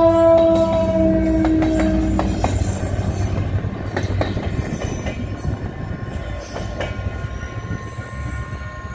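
GT22 diesel locomotive's horn sounding as a steady multi-note chord, cutting off about two and a half seconds in. The rumble of the locomotive and a passenger coach rolling past follows, with wheels clicking over the rails, slowly fading as the train moves away.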